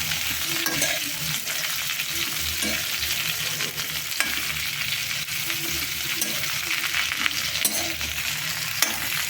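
Pieces of pointed gourd (parwal) frying in oil in a pan: a steady sizzle, with stirring scrapes and clicks against the pan as they are roasted.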